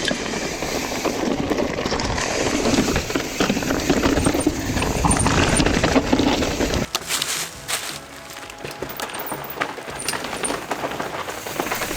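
Mountain bikes riding down a steep rock roll: tyres rolling and scraping over rock with the bikes rattling. About seven seconds in the sound changes abruptly to a quieter stretch of scattered clicks and rattles.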